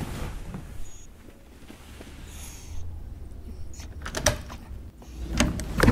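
A door clicking and knocking about four seconds in and again near the end, over a low steady rumble.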